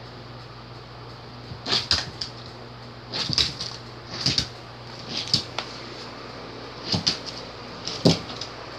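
A dog pouncing on a hardwood floor at a laser dot: its paws thump and its claws scrabble on the wood in about six short, irregular bursts.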